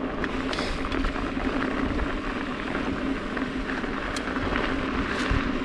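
Trek Fuel EX 5 full-suspension mountain bike rolling fast over a rough dirt trail: steady tyre and trail noise with rattles and a few small clicks, over wind rumble on the camera microphone and a steady hum underneath.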